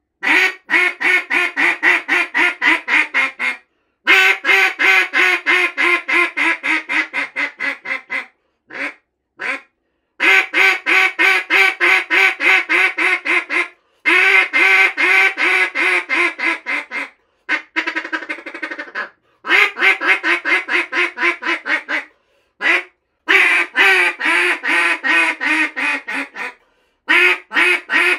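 A 737 Calls "Dos" double-reed duck call blown hard in runs of rapid hen-mallard quacks, about five a second, several series broken by short pauses and a few single notes. Loud, with one softer, buzzier run near the middle.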